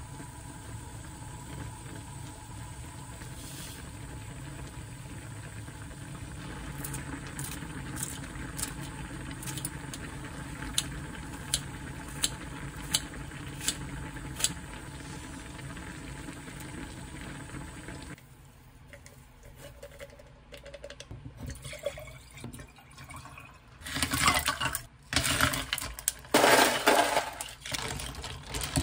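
Budae jjigae stew bubbling at a steady boil, with about ten sharp snips as kitchen scissors cut green chili and green onion into the pot. After a break, loud bursts near the end as a drink is poured over ice in a glass, the ice clinking.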